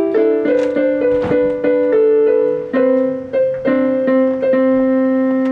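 Portable electronic keyboard being played, two notes at a time: the notes change every half second or so at first, then are held longer from about three seconds in.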